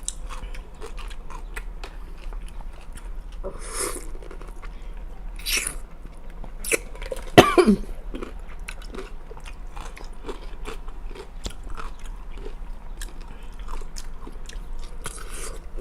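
Close-up chewing and crunching of dill pickles: many small wet clicks with a few louder bites, and one loud sudden sound about halfway through.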